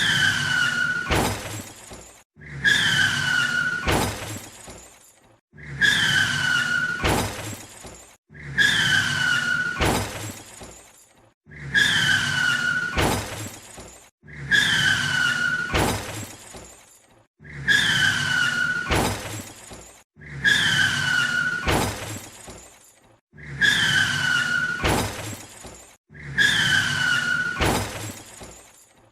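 Car crash sound effect played on a loop: a squeal with a sharp onset, a crash impact with shattering glass, then decay. The cycle repeats about every three seconds.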